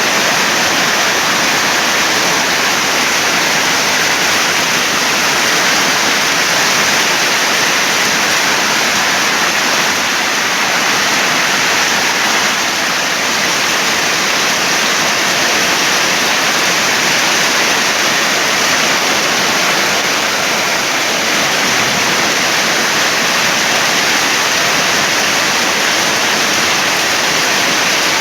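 Heavy rain pouring down in a storm, a steady, dense, unbroken rush.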